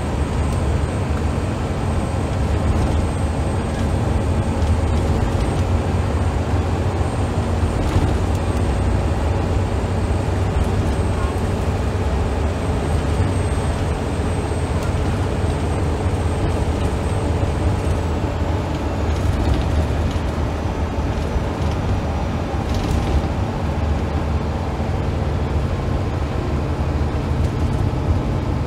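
Scania L94UB single-deck bus's rear-mounted diesel engine running steadily at road speed, with tyre and road noise, heard from inside the passenger saloon.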